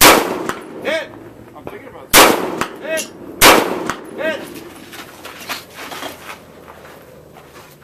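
Three AR-15 rifle shots, the second and third about a second and a half apart, each followed about a second later by the ring of a hit steel target.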